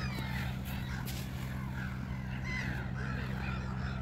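A flock of gulls calling, many short harsh calls overlapping, over a steady low hum.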